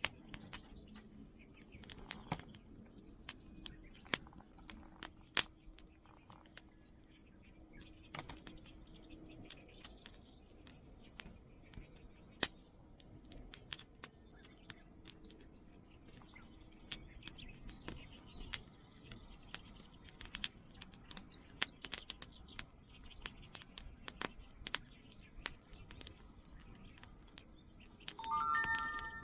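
Wood fire crackling quietly, with irregular sharp pops and snaps. Near the end comes a brief high-pitched squeak.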